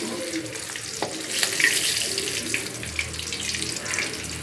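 Fish pieces frying in hot oil in a kadhai, a steady crackling sizzle, with a light knock about a second in.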